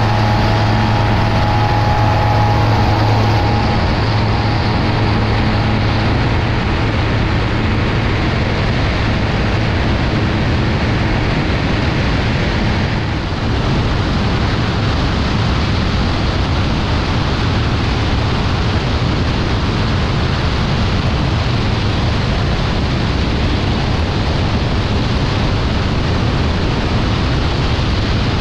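BRM Citius ultralight's engine and propeller rising to full power as it takes off again after a touch-and-go, with wind rushing over the wing-mounted microphone. About halfway through the engine note fades and a steady rush of wind takes over.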